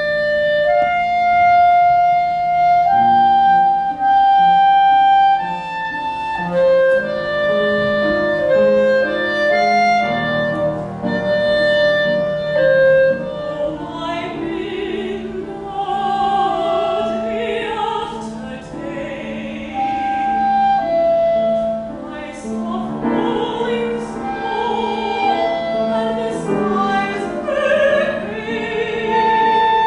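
Clarinet playing a slow melody in long held notes over piano; about halfway through a soprano voice comes in, singing with vibrato over the clarinet and piano.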